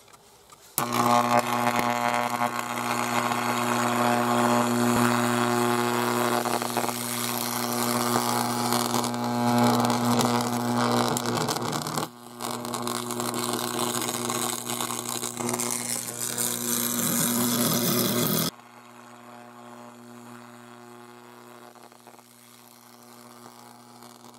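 High-voltage arc driven by a stack of microwave oven transformers, burning through a flat-screen TV's circuit boards: a loud, steady electrical buzz with crackling that starts about a second in. It breaks off briefly around halfway, and some six seconds before the end it drops to a much quieter steady hum.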